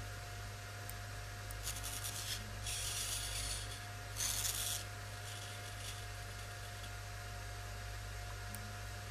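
Servo motors of a home-built tilt table driving it through short tilting moves: three brief bursts of high, hissing noise about two, three and four and a half seconds in, the last the loudest, over a steady electrical hum.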